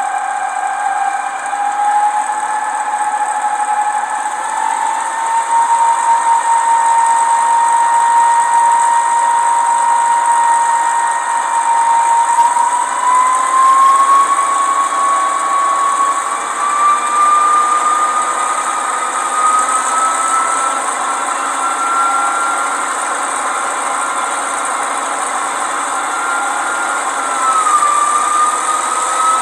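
Gauge 1 Köf II model diesel shunter running with its ESU LokSound diesel engine sound switched on. A whine rises steadily in small steps as the loco speeds up, dips briefly near the end, then climbs again.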